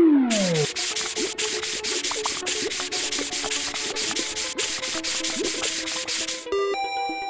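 Cartoon scrubbing sound effect: a sponge rubbing in quick, evenly repeated strokes over light background music. It opens with a falling whistle-like glide, and the scrubbing stops about six and a half seconds in, giving way to a short bright tone.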